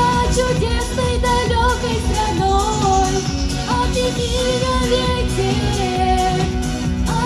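A song with a sung melody line that bends and glides over a full, steady backing accompaniment.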